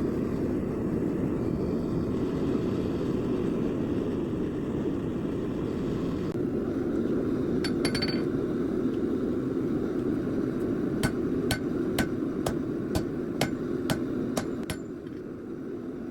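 Hammer blows ringing on an anvil while forging steel: a quick run of about nine strikes, roughly two a second, in the second half, with a couple of lighter clinks before them. A steady low roar runs underneath.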